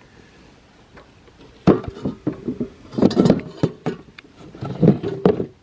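Irregular knocking, clicking and rattling of hard plastic parts being handled, starting about a second and a half in, as a speed controller is fitted and zip-tied under a toy ride-on Jeep's plastic dash.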